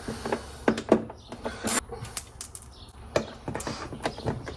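Scattered clicks and knocks of hand tools and fasteners being handled, with a short scraping rustle about a second and a half in.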